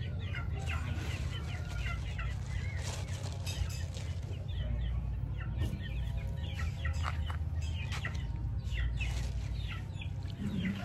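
Chickens clucking, with many short, high chirps overlapping throughout, over a steady low rumble.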